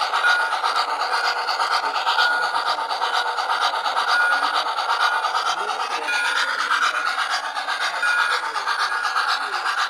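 O-gauge model train running on three-rail metal track, heard from on board: a steady grinding rush of wheels and motor, with a brief high tone repeating about every two seconds.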